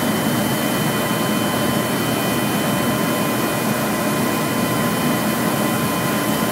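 A machine runs steadily throughout: a loud, even hiss with a low hum and a constant high whine over it.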